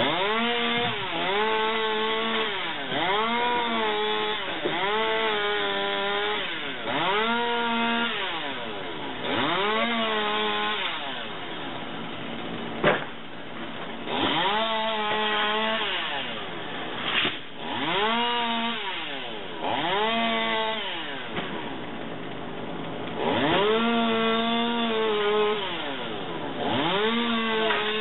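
Chainsaw revving up, holding briefly and dropping back a dozen or so times as it cuts through palm fronds, with a single sharp knock about halfway through.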